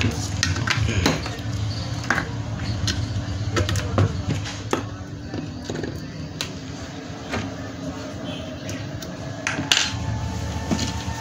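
Scattered small clicks and taps of hands handling wires and fitting a small plug-in connector on an inverter circuit board, over a steady low hum.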